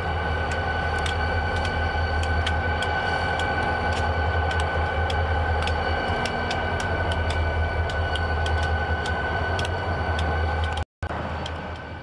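Diesel freight train running, with a steady low rumble, a steady high squeal and frequent sharp clicks. The sound drops out for an instant near the end.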